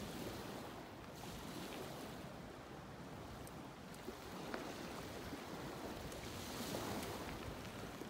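Steady rushing wind noise on the microphone of a camera riding on a moving bicycle, with a few faint clicks.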